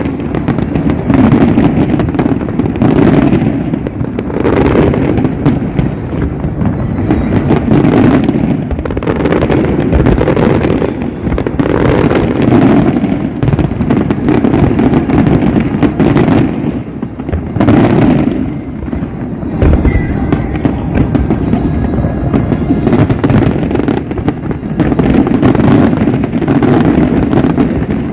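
Aerial fireworks display: a dense, continuous barrage of booms and bangs, one after another with no pause.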